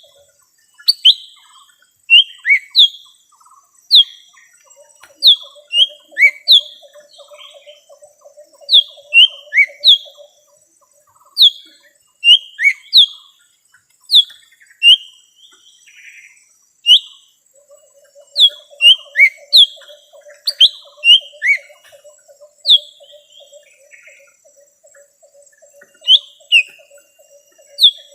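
Lesser green leafbird (cucak ijo mini) calling: loud, sharp, high chirps that slur quickly downward, one or two at a time at irregular intervals. This is a lure call used to draw in wild birds. A faint, fast, low pulsed trill runs behind it for stretches.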